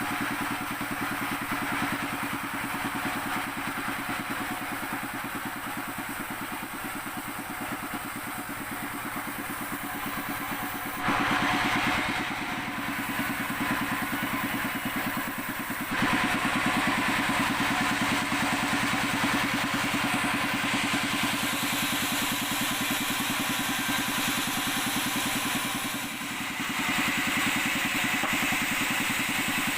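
Sawmill saw machine running steadily with a low engine-like hum; the sound turns suddenly louder and hissier about 11 seconds in, again about 16 seconds in, and once more about 26 seconds in.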